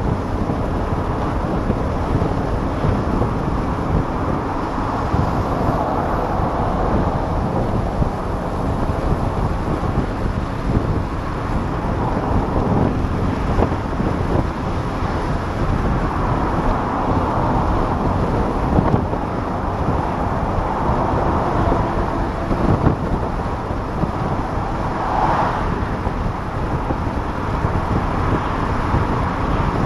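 Open-top cabin of a 1994 Saab 900 S convertible cruising at highway speed: a steady rush of wind buffeting over the open cabin, mixed with road and engine noise.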